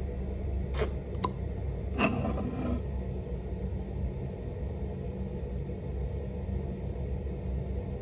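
Steady low background rumble, with two sharp clicks about a second in and a short rustle near two seconds as a lip gloss tube is opened and handled.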